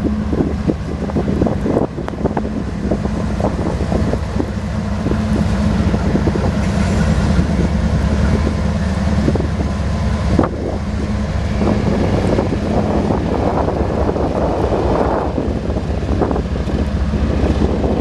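Freight train passing close at speed: CSX diesel-electric locomotives' engines running, then freight cars rolling by with repeated clacking of steel wheels over the rail joints. Wind buffets the microphone throughout.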